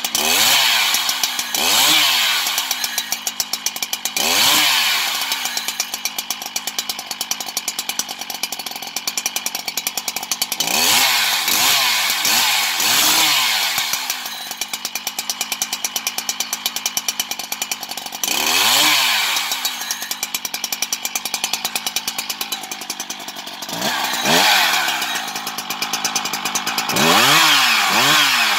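Husqvarna 365 X-Torq two-stroke chainsaw running with its bar clear, idling with a rapid steady firing beat and blipped on the throttle about nine times, each rev rising sharply and falling back to idle, several coming in quick runs of two or three.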